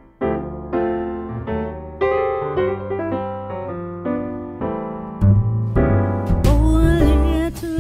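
Background music: a piano playing a string of separate notes, joined about five seconds in by a deep bass and, near the end, a wavering lead melody.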